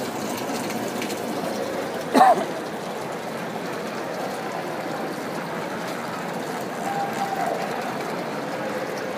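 Water splashing and trickling steadily into an aquaponics fish tank, with faint voices in the background. About two seconds in comes one short, loud, high-pitched sound.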